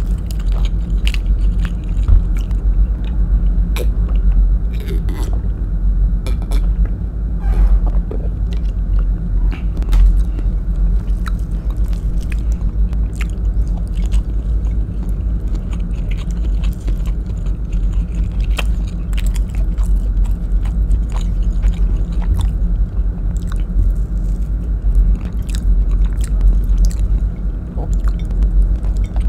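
Close-miked chewing and wet mouth clicks of someone eating rice and beef adobo in coconut sauce by hand, with frequent short smacks. A steady low hum runs underneath.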